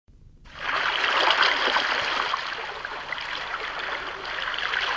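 Sea water lapping and washing: a steady splashy wash that fades in about half a second in.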